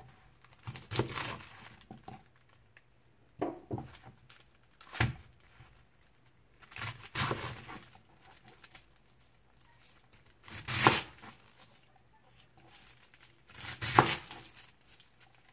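Chef's knife slicing through a raw cabbage wedge: about seven slow, separate cuts, each a crisp crunch of leaves ending in a knock of the blade on the cutting board.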